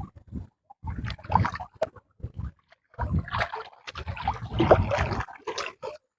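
Water splashing and sloshing in irregular bursts, heaviest about a second in and again from about three to five seconds in.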